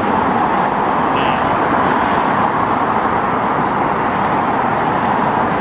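Steady road traffic on a busy city street: an even rush of passing cars with no single vehicle standing out.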